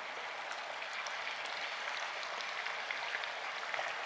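Boiled baby potatoes deep-frying in a pan of hot oil: a steady sizzle with scattered small crackles and pops.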